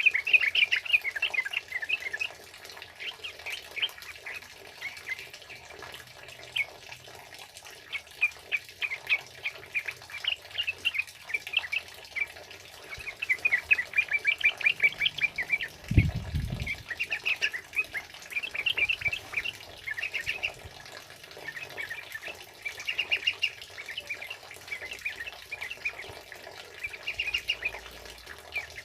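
Yellow-vented bulbuls giving their chattering song in rapid runs of short, bright notes, several bursts following one another, over a faint hiss of rain. A short low thud about halfway through.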